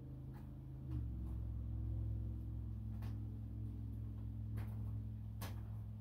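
Steady low electric hum from the model train set, stepping up louder about a second in, with a few light clicks and taps scattered through it.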